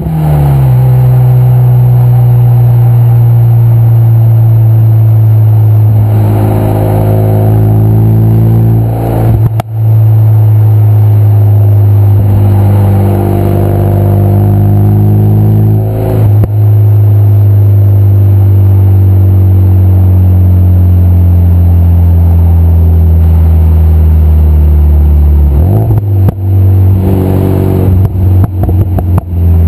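Renault Mégane RS250's 2.0-litre turbocharged four-cylinder, heard through a straight 3-inch Milltek centre section and small Powerflow rear box, droning loudly on the move with its pitch slowly sinking and breaking off briefly twice. Near the end the exhaust gives a quick run of pops and bangs.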